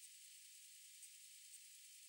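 Near silence: a faint, steady high hiss with a few faint high ticks.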